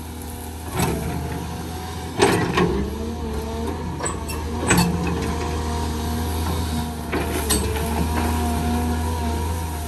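Caterpillar 320 hydraulic excavator working: its diesel engine drones steadily under a hydraulic whine that shifts a little in pitch as the arm moves. About five sharp cracks and knocks break through as the bucket pushes over brush and small trees.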